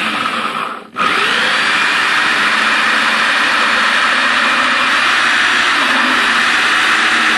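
Corded electric drill driving a 3-inch hole saw through the wall of a plastic tote: the motor runs with the teeth grinding into the plastic. It stops briefly about a second in, then spins back up and runs steadily.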